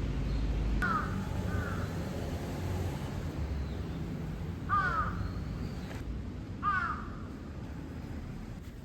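A crow cawing: two quick caws about a second in, then single caws near five and seven seconds, over a steady low background rumble.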